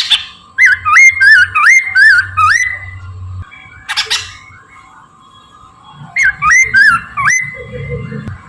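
Poksay Mandarin, a caged laughingthrush, singing loudly in quick runs of looping, up-and-down whistled notes, twice, with a short harsh rasping call at the start and another about four seconds in.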